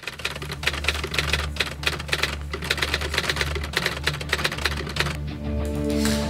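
Rapid typewriter key clicks, a spy-film sound effect for an on-screen caption being typed out letter by letter, over a low steady drone. Sustained music tones come in near the end.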